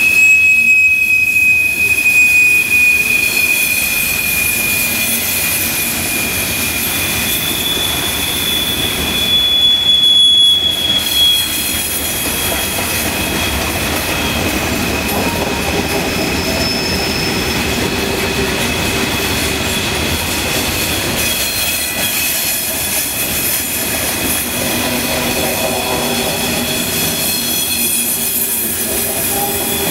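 Coal hopper cars rolling past, their wheels squealing in long, high, steady tones that drift slightly in pitch over the constant rumble and clatter of steel wheels on rail. The squeal and rumble are loudest at the start and again around ten seconds in.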